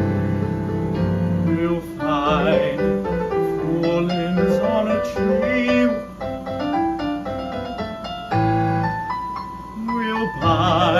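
Piano accompaniment playing a musical theatre song, with a man's singing voice with vibrato coming in briefly about two seconds in and again near the end.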